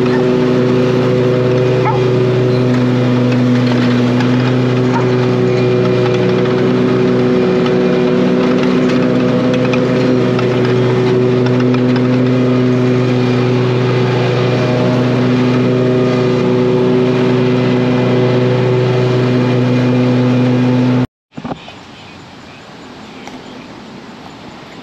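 Exmark Radius E-series zero-turn mower engine running at a steady speed, heard close up. The engine sound stops abruptly a few seconds before the end, leaving a much quieter background.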